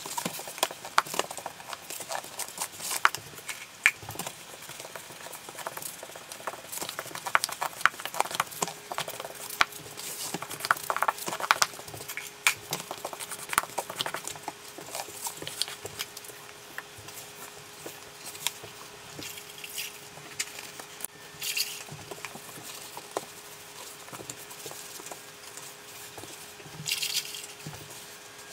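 Rubber grout float scraping and tapping against marble tile while grout is worked into the joints: an irregular run of small clicks and scrapes, busiest in the first half and thinning out later. A faint steady hum comes in about eight seconds in.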